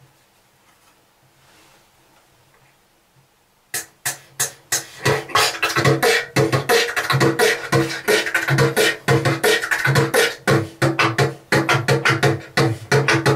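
Human beatboxing: after a few seconds of quiet room tone, a fast, dense electro-style beat of mouth-made drum hits and clicks starts suddenly about four seconds in.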